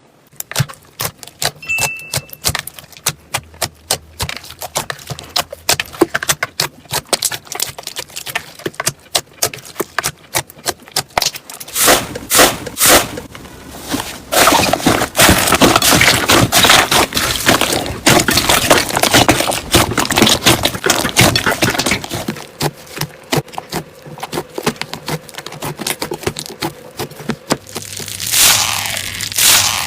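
Slime being pressed, stretched and poked by hand, giving rapid sharp clicking and crackling pops that grow denser and louder partway through.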